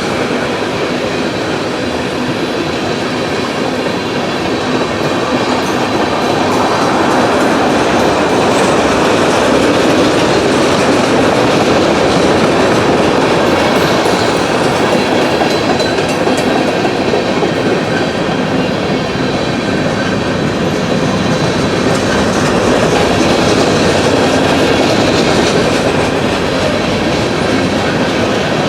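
CSX freight train cars rolling past close by: a steady loud rumble of steel wheels clacking on the rails, swelling and easing a little as the cars go by.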